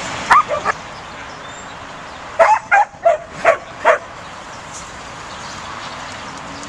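Pembroke Welsh Corgi puppy yipping while herding sheep: short, high barks, two near the start, then five more in quick succession from about two and a half to four seconds in.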